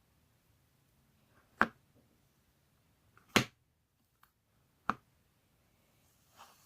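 Three sharp clicks about a second and a half apart, the middle one the loudest.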